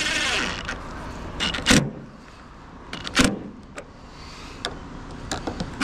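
Clearance light being screwed onto a school bus's steel roof cap: a short hiss at the start, then two sharp knocks and several small clicks of hardware being handled against the metal.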